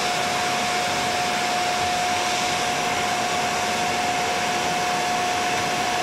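Canister vacuum cleaner running steadily, a constant whine over the rush of air.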